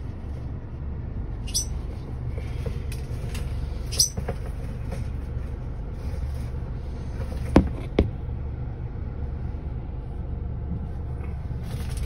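Steady low rumble of a car running, heard from inside the cabin, with a few sharp clicks and knocks; two loud knocks come in quick succession a little past the middle.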